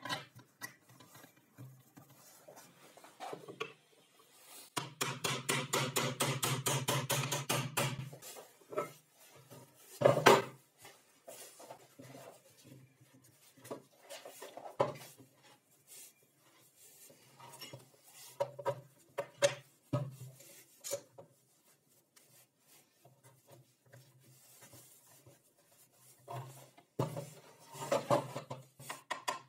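Hand work on a wooden workbench: rubbing and scraping of wood and metal parts, a run of fast, even strokes lasting about three seconds, and one sharp knock about ten seconds in, with smaller knocks and clatter as parts and clamps are handled.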